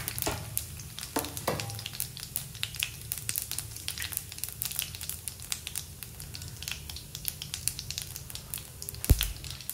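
Cumin seeds and a bay leaf sizzling in hot oil in a pan, with dense irregular crackling and popping and some stirring: the tempering stage of a curry. A single sharp knock about nine seconds in.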